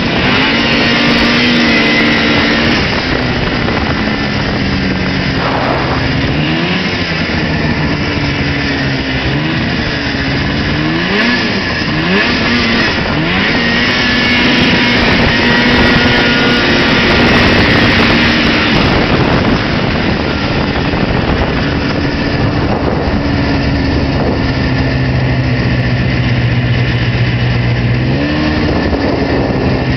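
Old Arctic Cat Pantera snowmobile's two-stroke engine running while riding, its pitch rising and falling with the throttle several times in the first part, then holding steady. Late on it settles to a lower steady note, and it revs up again near the end.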